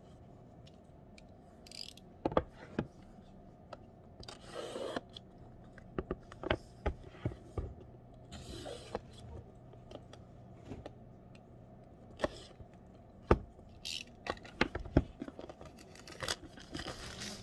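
Objects being handled: scattered irregular clicks and knocks, with short stretches of scraping or rustling.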